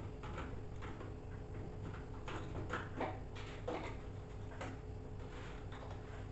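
Plastic drain filter of a Samsung front-load washing machine being screwed back into its housing: a string of faint, irregular clicks and scrapes.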